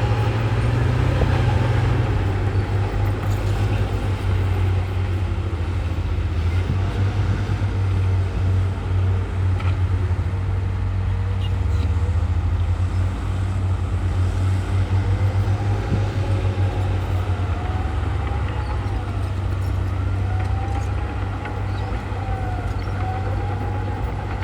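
Heavy diesel earthmoving machinery running steadily under load, a deep engine drone with a higher whine rising and falling in pitch, most plainly in the second half.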